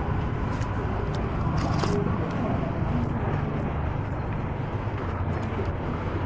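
Steady low rumble of passing street traffic, with indistinct voices and a few faint clicks.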